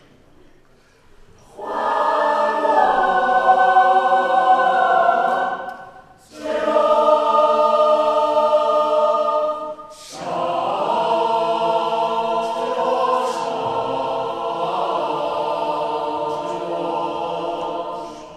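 Mixed choir of women's and men's voices singing unaccompanied in sustained chords. It enters after a quiet second and a half and sings three phrases, with short breaks between them about six and ten seconds in.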